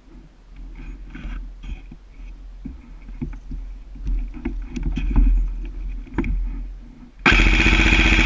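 Irregular rustling and light knocks, then, about seven seconds in, an airsoft rifle fires a full-auto burst: a fast, even rattle lasting about a second and a half, the loudest thing heard.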